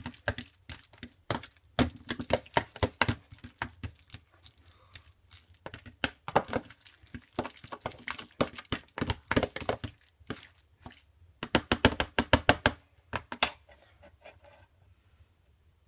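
A metal fork mashing and stirring hard-boiled eggs with mayonnaise in a plastic tub, with quick repeated taps and scrapes against the container. The taps stop about 13 seconds in.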